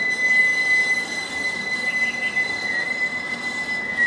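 Tram wheels squealing against the rails: one steady, high-pitched squeal over street noise.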